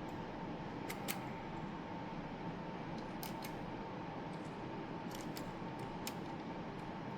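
Sharp plastic clicks of a 3D-printed utility knife's blade mechanism being worked, in quick groups of two or three, over a steady faint hiss and hum.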